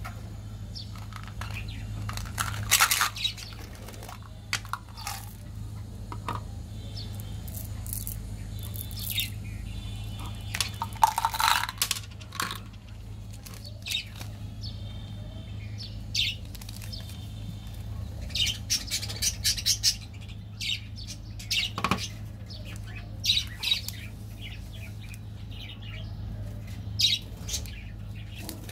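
Plastic and foil candy wrappers rustling and crinkling as they are handled, in short scattered bursts, over a steady low hum.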